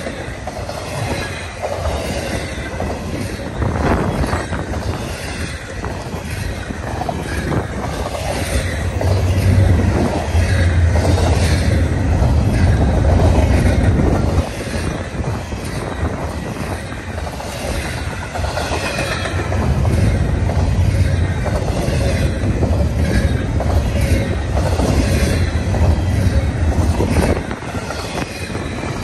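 Double-stack intermodal train's container well cars rolling past at track speed: a continuous rumble of steel wheels on rail with irregular clicks, swelling louder twice as heavier cars go by.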